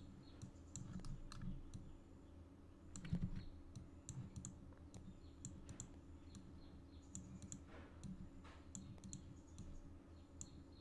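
Faint computer mouse clicks at an irregular pace, with a few keyboard key presses among them, over a steady low hum.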